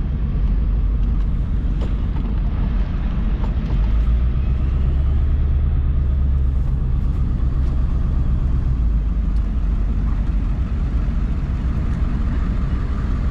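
Truck driving: a steady low engine and road rumble that swells for a couple of seconds about four seconds in.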